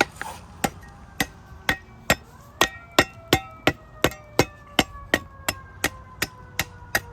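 Hand sharpener stroked quickly along the edge of a steel folding survival shovel, about three strokes a second, each a sharp click that sets the blade ringing.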